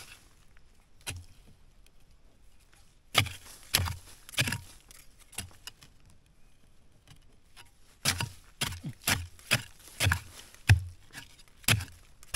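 A hand digging tool chopping down into hard, root-bound soil: separate dull strikes, a few spaced out at first, then a quicker run of about two a second in the second half.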